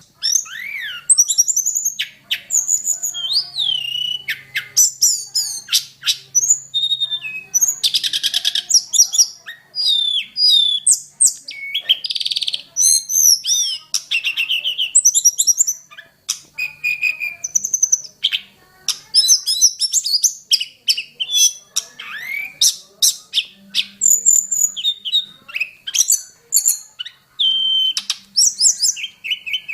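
Tledekan gunung singing a fast, varied song of gliding whistles, trills and chirps, phrase after phrase with only brief gaps.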